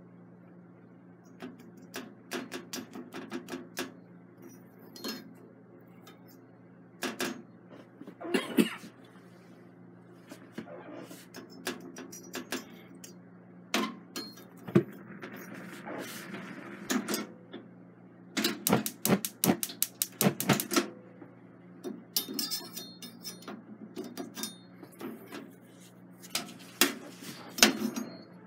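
Metal spatula clicking, tapping and scraping against the gas stove's pan supports and a frying pan as a chapati is turned and lifted over the open flame, in irregular clusters of sharp clatters. A steady low hum runs underneath.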